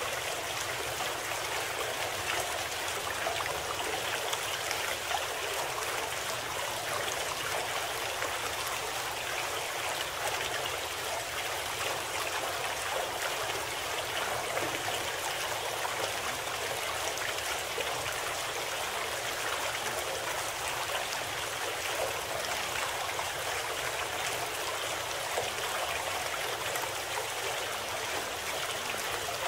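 Steady sound of a flowing stream, water running and trickling without a break, used as the masking bed of a subliminal audio program.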